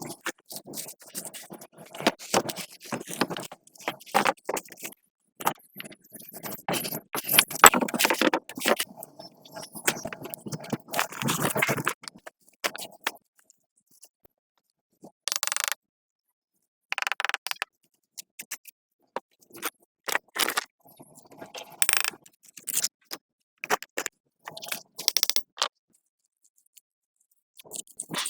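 Irregular scraping and rubbing strokes, busy for the first twelve seconds or so, then coming in short separate bursts with silent gaps between them.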